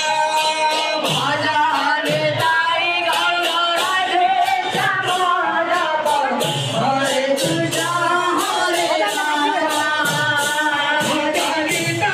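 Devotional naam-sankirtan chanting: voices singing the divine name together to a steady beat of ringing hand cymbals and a low drum.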